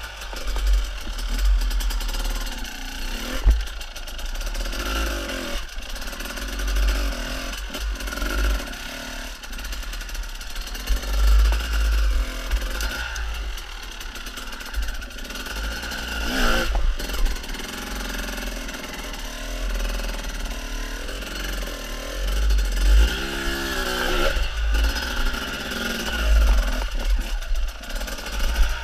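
Off-road enduro motorcycle engine revving up and down in short bursts as the bike is worked slowly over rocks and logs, with knocks and clatter from the bike bouncing over the rough ground.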